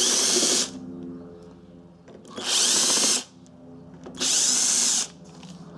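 Cordless drill-driver running in three short bursts of under a second each, backing out screws that hold the generator's socket panel.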